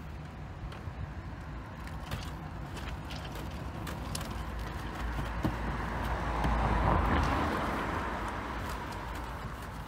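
Long-handled wash brush scrubbing the wet side panels of a car, with scattered knocks. Under it a rushing noise with a low rumble swells to its loudest about seven seconds in and then fades.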